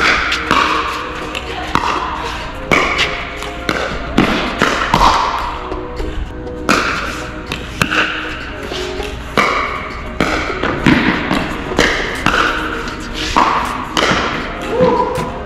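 Pickleball paddles hitting the plastic ball in a fast doubles rally: sharp hits at irregular intervals, roughly one a second, over background music.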